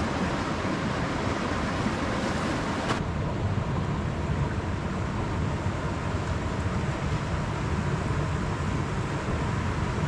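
Steady rushing of a rocky forest stream and its small waterfall, an even wash of water noise.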